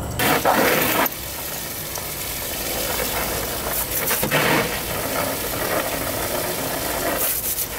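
Steady hiss of a garden hose spray nozzle, with louder spells of water spattering about half a second in and around four seconds in as a Siberian husky bites at the jet.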